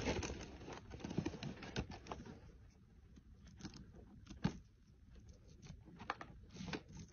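Faint clicks and rustling as Froot Loops cereal rings are threaded onto a shoelace and pushed down it, with a sharper click about four and a half seconds in.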